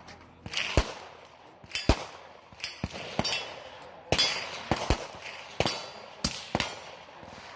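Gunfire at an outdoor shooting range: about a dozen sharp shots at irregular intervals, some close together, each trailing off in a short echo, as from several guns firing independently.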